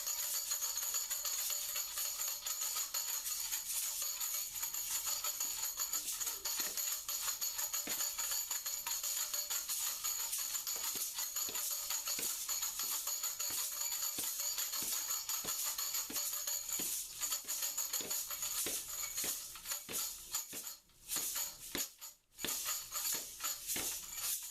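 Music with busy, jingling percussion. The sound thins out and breaks up near the end.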